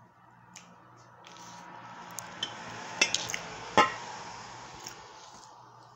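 A fork clinking and scraping against a plate of food during a meal: a handful of sharp clinks, the loudest a little after the middle, over a soft noise that swells and fades and a low steady hum.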